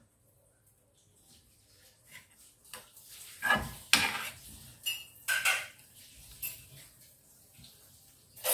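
Metal spatula scraping and knocking against a frying pan as pieces of pork are stirred: a string of clatters starting about three seconds in, and one more at the end.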